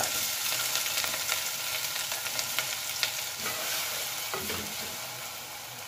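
Chopped onions sizzling in hot oil in an aluminium pressure cooker, stirred with a wooden spatula. The sizzle is loudest as the onions go in and dies down gradually.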